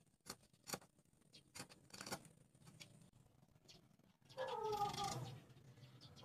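Light clicks and taps of wooden popsicle sticks being handled, then about four seconds in an animal's pitched call, about a second long and falling slightly in pitch, the loudest sound.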